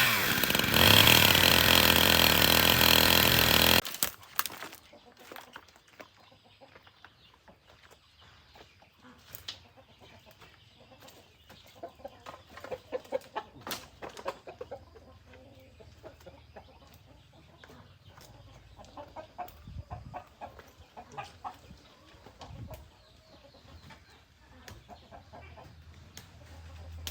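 Chickens clucking in short scattered calls. The clucking is strongest about twelve to fifteen seconds in and again around twenty seconds. A loud, dense noise fills the first four seconds and then cuts off abruptly.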